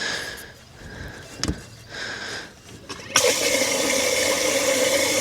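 Boat live-well pump switching on about three seconds in and running steadily with water rushing, after a few quiet handling knocks.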